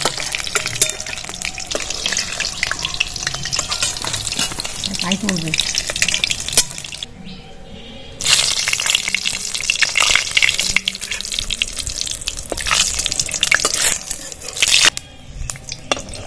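Hot oil sizzling and crackling in a steel karahi, first around frying onion fritters (piyaji), with metal spatula strokes against the pan. After a short lull about halfway through, a fresh burst of sizzling as dried red chillies go into the hot oil.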